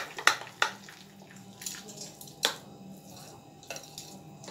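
Steel spoon stirring thick rava (semolina) idli batter in a bowl to mix in baking soda: wet squishing, with about half a dozen sharp clicks at uneven intervals as the spoon strikes the bowl.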